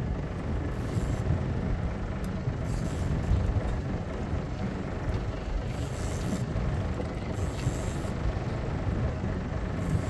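Boat engine running steadily, with several short hissing bursts of about half a second each.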